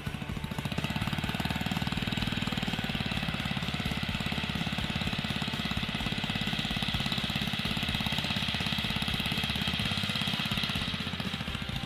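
Small engine running steadily with a fast, even pulse, growing a little louder about a second in and easing slightly near the end.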